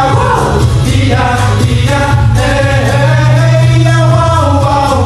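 Music with sung vocals over a strong, steady bass line: the song the dance routine is set to.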